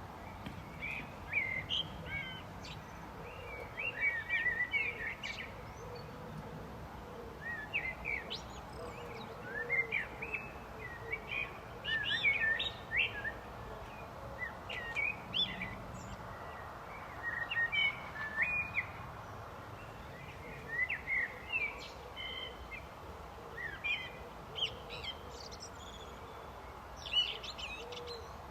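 Blackbird singing: short, varied song phrases come every second or two, with brief pauses between them, over steady background noise.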